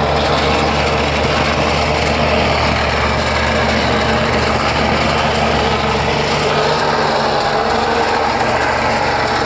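Engine-driven compactor running steadily over a bed of broken brick chips, its small engine's low hum under a constant gritty rattle and scrape of crushed brick. The engine hum weakens and turns uneven about six seconds in.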